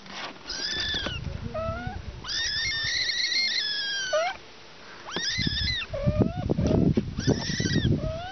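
Young kitten mewing: several high-pitched mews, one held for about two seconds, with a low rumble underneath some of them.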